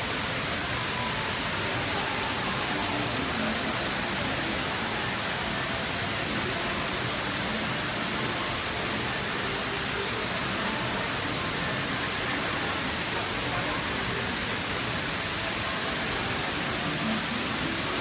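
The Dubai Mall's indoor waterfall, water sheeting down a tall wall into a pool, giving a steady, even rush of falling water.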